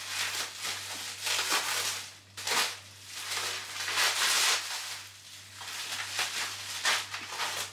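Plastic packaging crinkling and rustling as a kitchen knife cuts and tears it open, in irregular bursts with the loudest near the middle.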